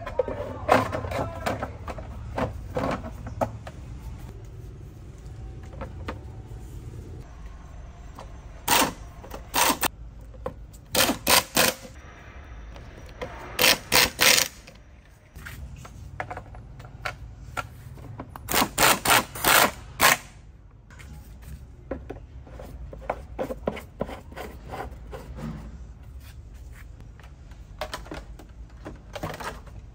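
Workshop work sounds: small clicks and knocks of tools and metal parts being handled, broken by short, loud, sharp bursts in quick groups of two to four, around a third of the way in, near the middle and about two-thirds through.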